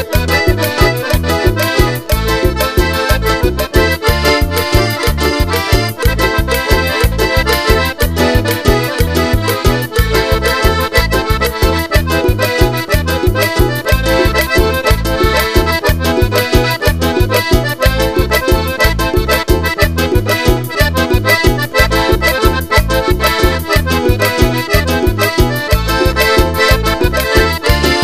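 Soprani piano accordion playing a lively tropical chamamé melody over a steady, evenly pulsing bass beat.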